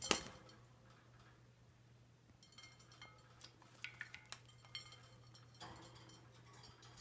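Parakeets on a glass pie pan: a sharp clink as one lands on the rim, then scattered small clinks of feet and beaks on the glass with light splashing and fluttering as a bird bathes in the shallow water.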